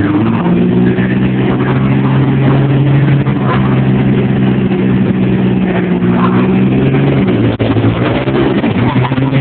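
Diesel pickup truck engine running loudly at a steady, slightly raised speed while the truck is staged at the drag-strip starting line.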